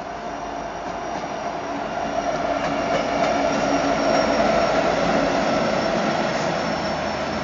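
Norfolk Southern diesel-electric freight locomotives passing close by, several units in a row. The engine drone grows louder to a peak about four seconds in, then eases slightly as the lead units go past.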